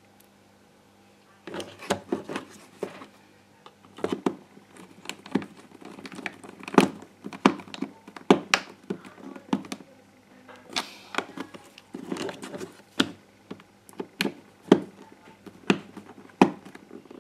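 Black plastic housing of a GHD 5.0 hair straightener being handled and worked apart by hand: irregular clicks, knocks and rustles of plastic parts, starting about a second and a half in.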